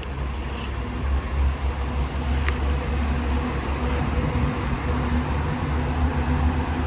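Steady road traffic noise: a low rumble of passing cars with a faint engine hum, and one short click about two and a half seconds in.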